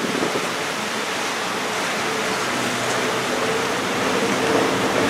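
Steady rush of wind and water from a boat under way, with a boat engine's hum coming up under it about halfway through and growing a little louder toward the end.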